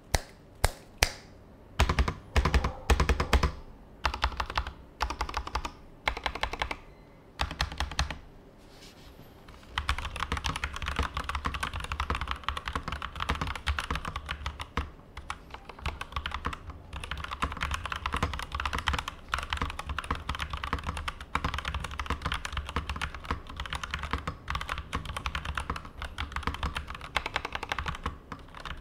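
Durgod Cavalry 87 mechanical keyboard with Kailh Turbo switches and PBT double-shot keycaps being typed on. For the first several seconds keys are pressed one at a time, a few a second. After a short pause near the middle it changes to steady, fast continuous typing.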